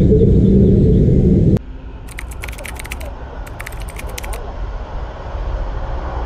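Loud low rumble of a vehicle on the move that cuts off abruptly about a second and a half in. Then comes a quieter vehicle hum with two quick runs of rapid clicking.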